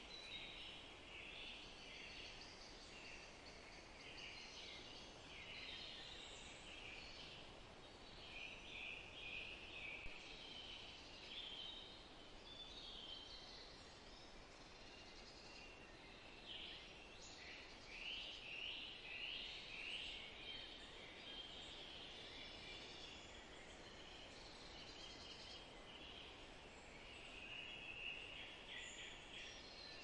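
Meadow birdsong: several small birds singing and chirping, their short high calls overlapping without a break, over a soft steady hiss of outdoor ambience.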